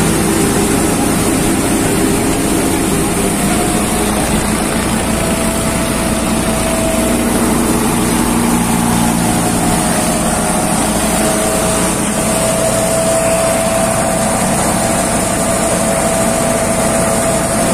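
Maruti Agro Jumbo Tokri MA 7 thresher running steadily under load while threshing mustard, a loud continuous mechanical drone with a faint steady whine over it.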